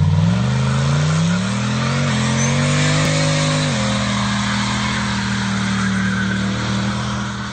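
Car engine revving up for about three and a half seconds, then holding steady at high revs under a loud rushing noise, fading out at the end.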